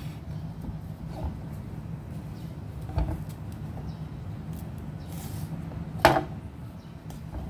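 Kitchen knife knocking against a cutting board while banana ends are cut off: two sharp knocks about three seconds apart, the second louder, with a few faint ticks of handling, over a steady low hum.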